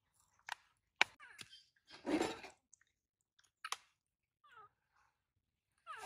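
Scattered short clicks and light knocks with one louder half-second rustle about two seconds in: a baby macaque being handled and settled into a plastic basin of water.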